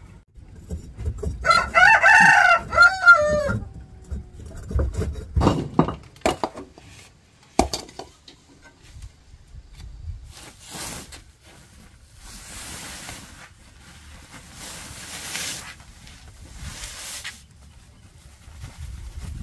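A rooster crows once, about a second and a half in: one loud call of about two seconds that falls in pitch at the end. A few sharp knocks follow, then several stretches of rustling noise.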